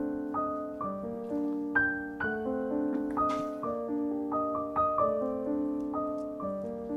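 Background piano music: a gentle melody of held notes over chords.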